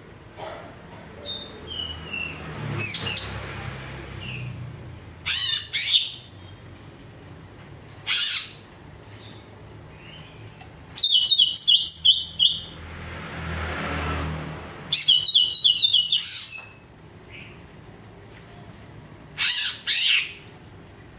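Male green leafbird (cucak ijo) singing in loud, separate phrases with pauses between them: sharp whistled notes and short bursts, and two fast, stuttering trills of repeated notes in the middle.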